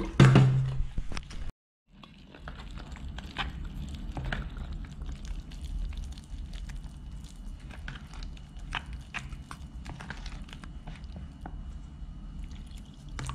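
Wooden spoon stirring thick flour-and-water batter in a plastic bowl: wet squelching with many irregular small clicks of the spoon against the bowl. A brief loud noise opens it, followed by a short gap in the sound.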